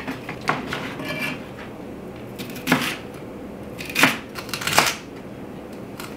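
Chef's knife chopping celery stalks on a cutting board: a handful of sharp knocks of the blade through the celery onto the board at uneven intervals, the loudest about four seconds in.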